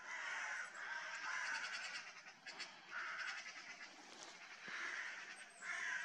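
Hooded crows cawing: a run of about five separate caws, each roughly half a second long, with short pauses between them.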